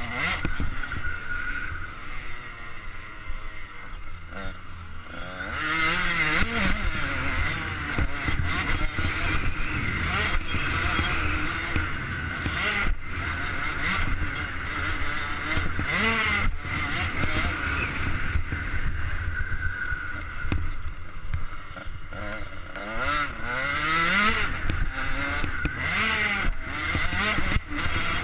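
KTM 85 SX two-stroke single-cylinder motocross engine revving hard under riding, its pitch repeatedly rising and falling as the rider works the throttle and gears, easing off briefly about two to five seconds in. Heard from a helmet-mounted camera, with wind noise over it.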